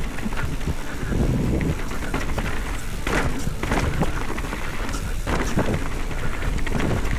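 Wind rushing over the microphone and the rattle of a mountain bike riding down a rough trail, with several sharp knocks as it hits bumps.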